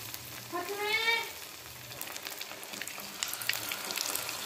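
Hot oil sizzling and crackling around batter-dipped paneer pieces frying in a pan, with the crackling pops growing busier in the last second or so.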